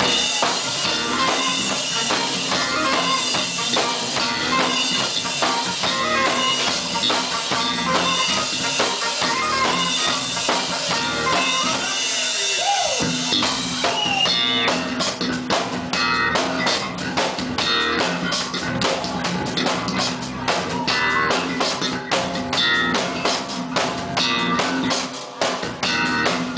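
Live band playing: drum kit, bass and electric guitar with keyboard. About halfway through, the drums come to the front with sharp, evenly spaced hits, about four a second.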